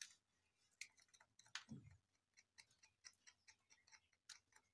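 Faint, irregular small clicks and scrapes of steel tweezers pinching and crushing the heads off matchsticks.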